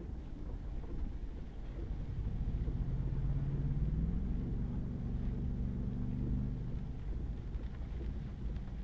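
Pickup truck heard from inside the cab, driving on a wet, muddy gravel road: a steady low tyre and road rumble, with the engine note rising for a couple of seconds and then dropping lower about four seconds in.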